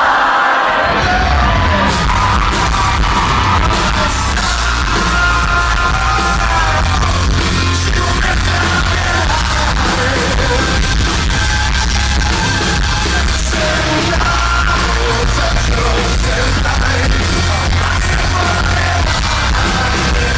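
Loud live band music with singing and yelling over heavy, steady bass, recorded through a Google Pixel 6 phone's microphone, a recording the uploader flags as having a sound issue.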